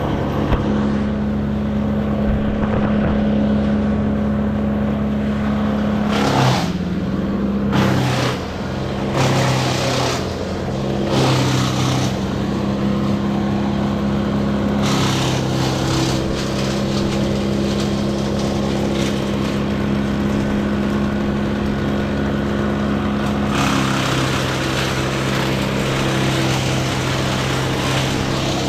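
An engine-driven machine running steadily, with louder, noisier stretches about six to twelve seconds in, briefly around fifteen seconds, and again near the end.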